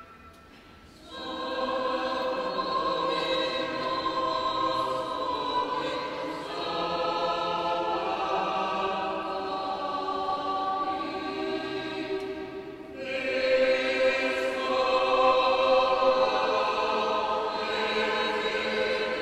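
Church choir singing unaccompanied Byzantine liturgical chant, in several sustained voice parts. It comes in about a second in and sings two long phrases with a brief break between them, about two-thirds of the way through.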